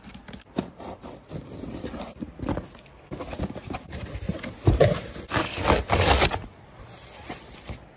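Cardboard box being opened and unpacked: scraping at the tape and flaps, then a white foam packing sheet rustling and crinkling as it is pulled out, loudest about five to six seconds in.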